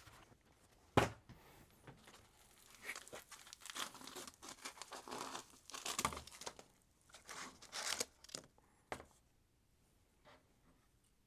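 Packaging being handled during an unboxing: irregular crinkling and rustling of wrapping material, with a few sharp clicks.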